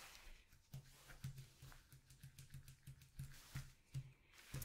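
Faint handling noises of potato chips and their plastic bag: soft irregular rustles and light clicks, with small dull taps on the table.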